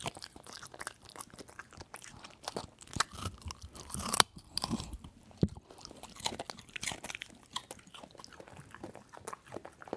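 A dog eating greedily: quick, irregular chomps and chewing clicks, with the loudest bite about four seconds in.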